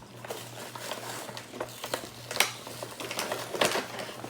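Small hard plastic toy pieces being handled: irregular clicks and taps.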